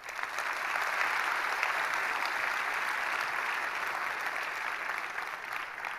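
Audience applauding: steady clapping that breaks out suddenly and begins to die away near the end.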